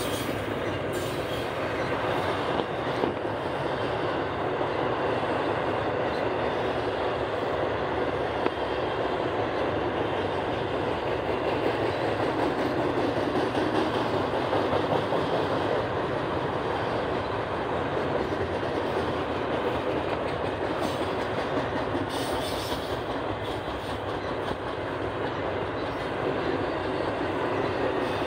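Double-stack intermodal container cars rolling past: the steady noise of freight car wheels running on the rails.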